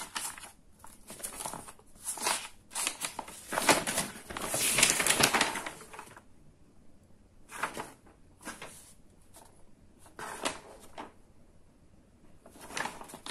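Paper instruction manual rustling as it is unfolded and its pages are handled, in irregular bursts; the longest, loudest rustle comes about four to six seconds in, with sparser short crinkles after.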